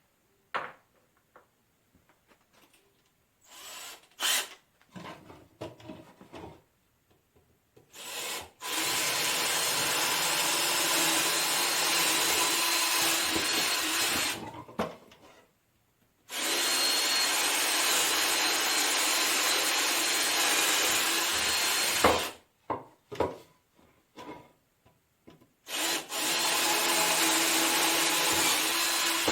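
Shop power tool working metal stock, running three times for about six seconds each with a steady whine under a rasping cutting noise, with short pauses and a few knocks in between.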